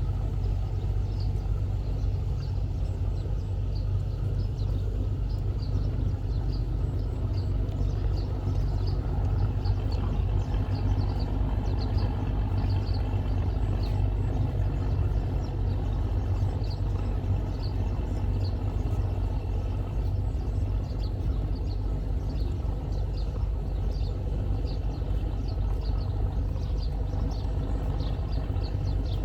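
Steady low drone of a small boat's diesel engine running under load as it pushes a barge. Faint short high chirps repeat about once or twice a second over it.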